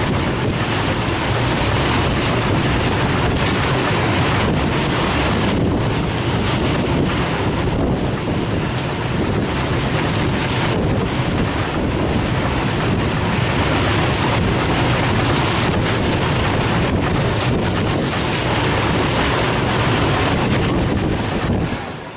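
Train running past at speed: a steady, loud rush of wheel and track noise with wind buffeting the microphone, falling away sharply near the end.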